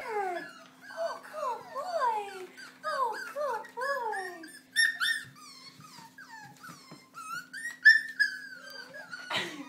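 Young miniature schnauzer puppies whining: a long run of short cries that each fall in pitch, about two a second, some overlapping, then a longer, higher whine near the end.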